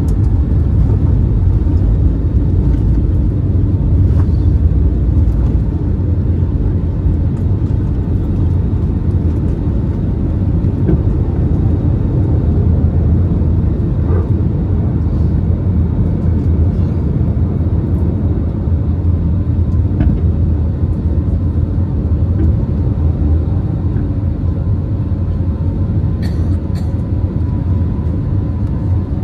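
Jet airliner engines at takeoff thrust, heard inside the passenger cabin as a steady, loud rumble. The deepest runway rumble eases about six seconds in as the aircraft lifts off and climbs away.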